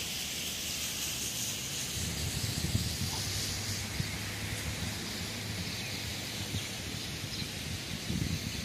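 Steady outdoor background noise: an even hiss with an uneven low rumble that swells about two to three seconds in and again near the end.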